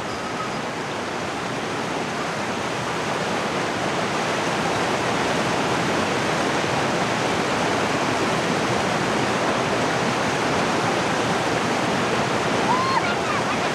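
Rushing mountain stream: a steady, full water noise that grows a little louder over the first few seconds.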